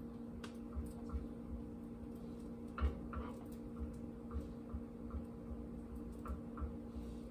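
Light irregular knocks and taps from a skillet being handled on a gas stove grate, the loudest about three seconds in, over a steady low hum.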